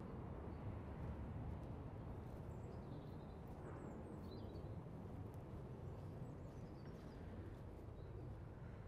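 Outdoor ambience: a steady low rumble with faint birds chirping a few times, in two short spells.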